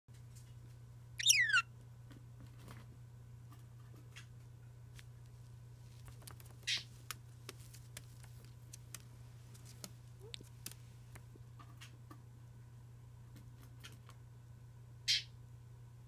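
Pet parrot calls: a loud whistle sliding steeply down in pitch about a second in, then two short shrill calls, one about midway and one near the end, with a few faint clicks between, over a steady low hum.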